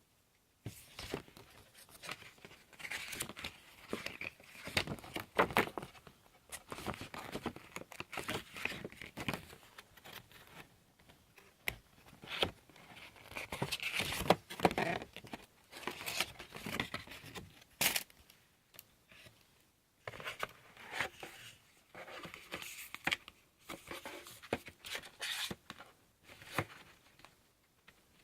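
Drone packaging being handled: irregular rustling, crinkling and tearing of paper and plastic wrapping, with small clicks and knocks as pieces are taken out and set down.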